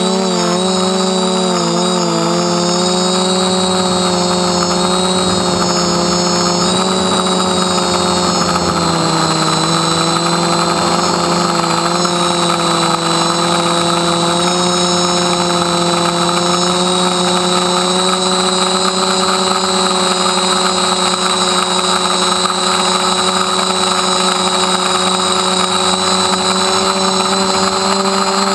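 DJI F450 quadcopter's motors and propellers whining steadily in flight, heard up close from the camera on the frame. The pitch wavers in the first couple of seconds, then holds with only slow drift.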